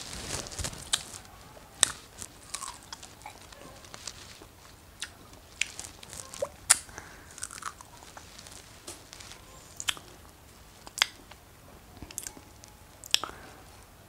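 A person biting and chewing fresh strawberries close to the microphone: wet mouth sounds broken by scattered sharp clicks and smacks, a few of them louder than the rest.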